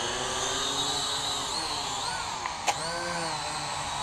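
Syma X8W quadcopter's four small brushed motors and propellers whining steadily in flight, the pitch rising and falling as the throttle changes.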